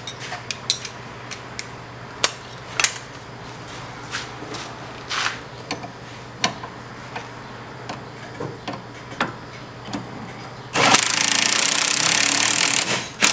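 Scattered metallic clicks and clinks of a wrench working the nut on a sway bar link. Near the end a cordless impact gun runs for about two seconds, hammering the nut onto the link's stud.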